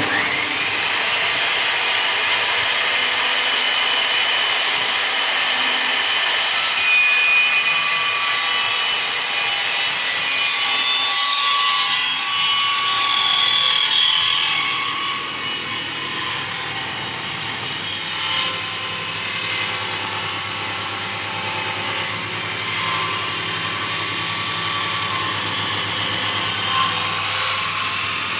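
A saw cutting through agarwood: a steady rasping cut with shifting whining tones over it. A low steady hum comes in about two-thirds of the way through.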